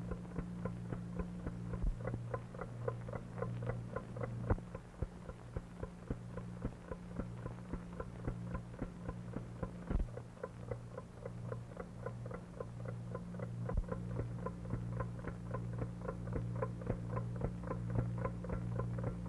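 Wind-up alarm clock ticking, fast and even at about four ticks a second, over a steady low mains hum.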